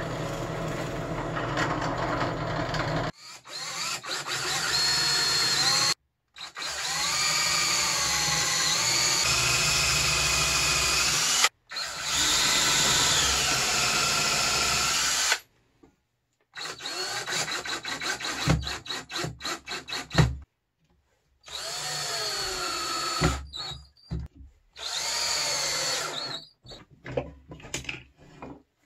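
A drill press runs steadily for about three seconds. Then a DeWalt cordless drill runs in several separate bursts, its pitch rising and falling as the trigger is squeezed and eased. A few short knocks come near the end.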